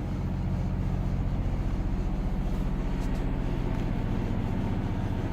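Motorhome's onboard generator running steadily: a low, even hum with a fast regular pulse, heard from inside the coach.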